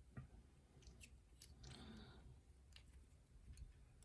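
Faint, sparse clicks of small metal lock parts being handled: the pins and springs of a disassembled lock cylinder being worked out with tools.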